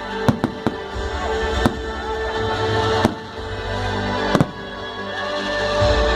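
Music playing, cut by several sharp bangs: three quick cracks in the first second, then single ones spaced a second or more apart, with a close double crack near the end.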